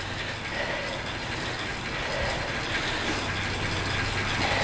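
Indoor bike trainer running under a rider pedalling at high cadence: a steady mechanical hum that slowly grows a little louder.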